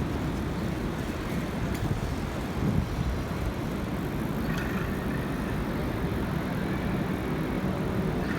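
Steady outdoor street noise: a constant low rumble of traffic and wind, with no distinct events.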